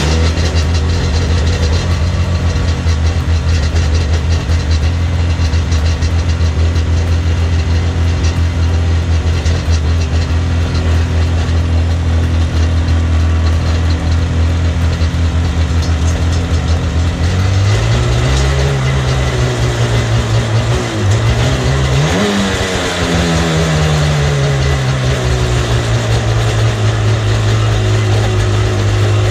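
Sea-Doo GTI jet ski's 717 cc two-stroke twin idling steadily on its first test run after the carburetor and fuel lines were refitted. About two-thirds of the way through it is revved up twice, the second time higher, then settles back to idle.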